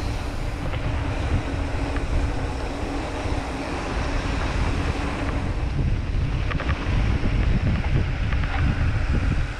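Wind buffeting the action camera's microphone during a fast mountain-bike descent: a steady, loud, gusting low rumble with a hiss of rushing air.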